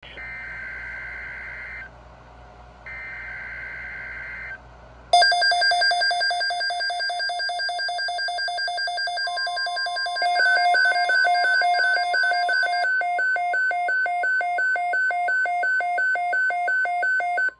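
NOAA Weather Radio alert for a severe thunderstorm watch: two short buzzy SAME data bursts, then from about five seconds in the weather alert radios' loud, rapid pulsing alarm beeps. A second alarm pattern joins near ten seconds, over a steady warning tone, and all of it cuts off suddenly at the end.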